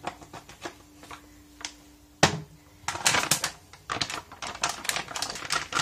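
Plastic bag of marinating pork chops being handled: scattered crinkling clicks, a single thump a little over two seconds in, then denser crinkling and rustling of the plastic.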